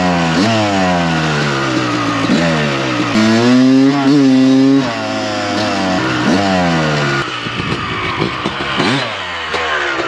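1990s Honda two-stroke motocross bike accelerating hard, its engine pitch climbing and then dropping several times as it shifts up through the gears. Near the end the engine note turns rougher, with quick throttle blips.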